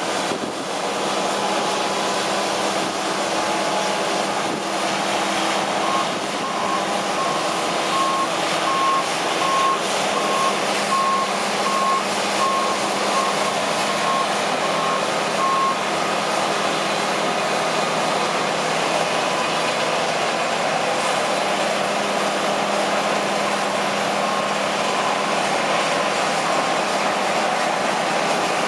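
John Deere 9770 combine running steadily under harvest load. From about six seconds in, a reversing alarm beeps about once a second for roughly ten seconds.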